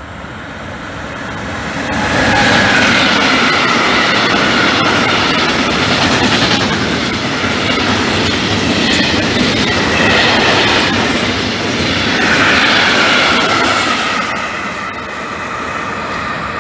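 Freight train of hopper wagons behind an E.189 electric locomotive passing close at speed: a loud rolling clatter of wheels on rail with shrill, falling wheel squeals. It swells up about two seconds in and eases off near the end as the last wagons go by.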